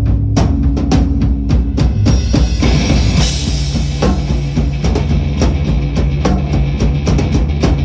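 Rock band playing: a drum kit beating a fast, even rhythm over a steady bass line, with a cymbal wash swelling in about three seconds in.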